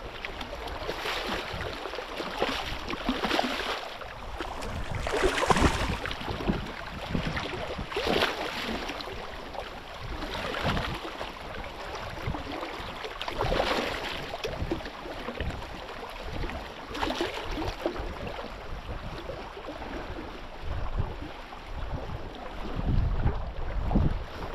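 Water sloshing against a small boat's hull with wind buffeting the microphone. It swells louder every two to three seconds.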